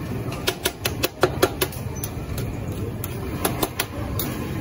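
Metal spatula clinking and scraping against a large round steel cooking pan while stirring a tomato gravy: a quick run of sharp clicks early on, then a few more about two and three and a half seconds in, over a steady low rumble of street noise.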